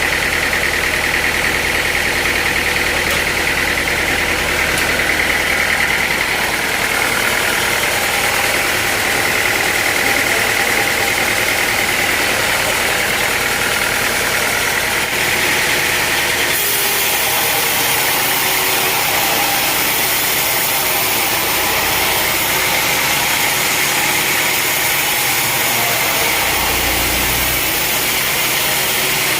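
Sawmill machinery running steadily with a loud, constant mechanical noise. A low hum fades about six seconds in, and a higher hiss joins a little past halfway.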